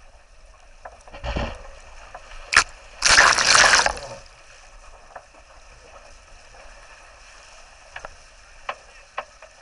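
Water rushing along the hull of a Laser 4000 dinghy heeled over under sail, with a shorter splash just over a second in and a loud burst of spray breaking over the side for about a second, three seconds in. A few sharp knocks and clicks come and go.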